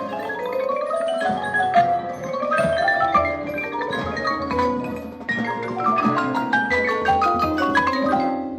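Marching band show music led by mallet percussion, playing quick runs of ringing notes that climb and fall, which die away near the end.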